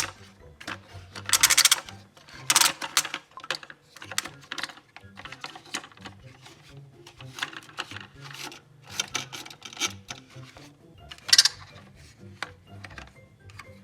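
Plastic toy vehicles clicking and clattering as they are handled, with several short, louder rattling bursts.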